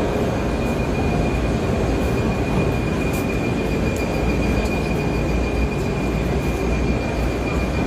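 Industrial machinery running at a machinery exhibition: a steady loud rumble and hiss with a thin high whine held throughout, and a few faint clicks.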